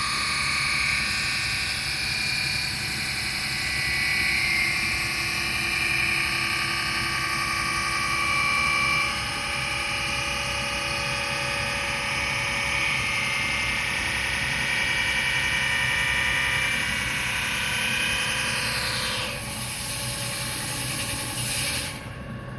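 CNC wheel lathe machining a car rim, a steady high-pitched machine whine with overtones. Near the end the pitch falls as the spindle winds down, then the sound drops away suddenly.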